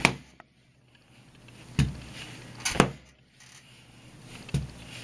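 Small, very light folding knife thrown point-first into a wooden floor: four sharp knocks as it strikes, the second and third about a second apart.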